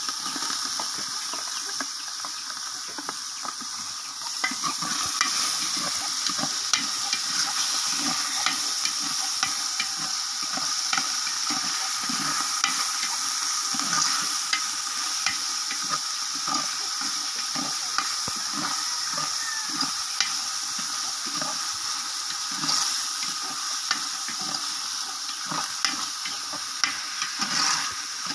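Diced hotdogs and meat sizzling as they fry in oil in a large aluminium pot. A metal spatula stirs them, scraping and clicking against the pot, over a steady high hiss.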